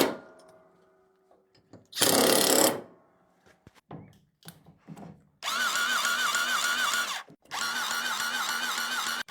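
A power tool working in the shop: two short hissing bursts, a few light clicks, then from about five seconds in a steady run with a warbling whine, broken by a brief stop near seven seconds.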